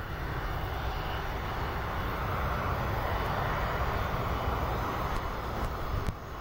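Airbus A330-300's Rolls-Royce Trent 700 turbofan engines at take-off thrust as the airliner rolls past down the runway: a steady jet rush with low rumble that swells through the middle as it passes.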